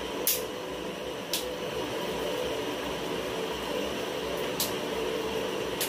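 Digitek DTR 550 LW tripod's plastic leg flip-locks clicking sharply as the telescoping legs are opened and extended, four clicks spread out, two near the start and two near the end. A steady fan hum lies under them.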